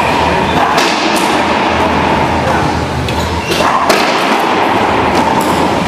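Racquetball ball being struck during a doubles rally: sharp cracks of the ball off racquets and the court walls, echoing in the enclosed court, once about a second in and several in quick succession near the four-second mark, over a steady hum.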